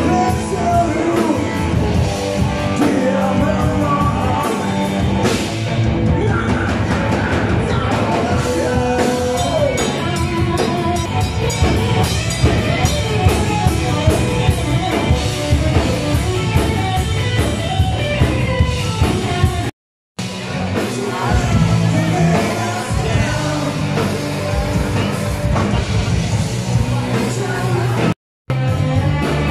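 Live rock band playing loud with electric guitars, bass and a drum kit, a singer's voice over the top. The sound drops out completely twice for a fraction of a second, about two-thirds of the way through and again near the end.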